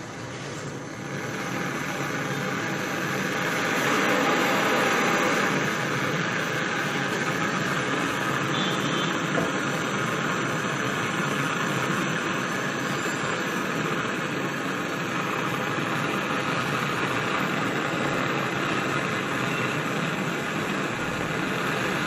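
Handheld canister blow lamp hissing steadily as its flame heats a copper pipe joint at a refrigerator's filter to unbraze it. The hiss grows louder over the first few seconds, then holds steady.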